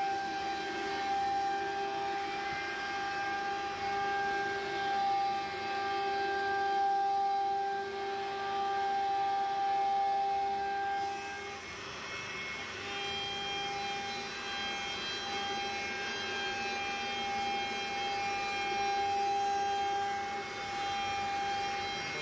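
CNC router spindle whining steadily as its bit routes grooves into a wooden door panel. The whine dips briefly about halfway through, then carries on.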